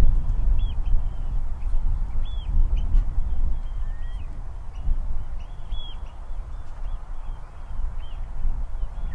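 Partridges calling: a rapid run of short, high notes repeating throughout, over a low rumble.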